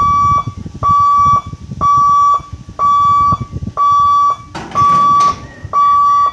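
Electronic warning hooter at a railway level crossing, beeping a steady high tone about once a second, each beep about half a second long, signalling that a train is approaching. Low rumbling noise runs underneath, with a short burst of hiss about five seconds in.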